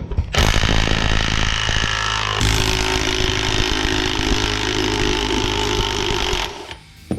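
A power tool runs for about six seconds and then stops. Its sound changes about two seconds in, from a rapid chattering to a steadier, higher running note.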